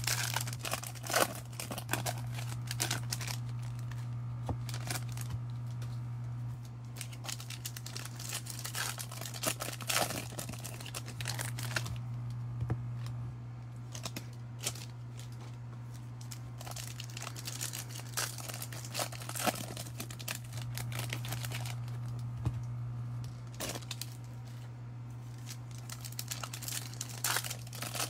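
Foil baseball card pack wrappers being torn open and crinkled, in irregular short crackles and rips, with cards handled in between. A steady low hum runs underneath.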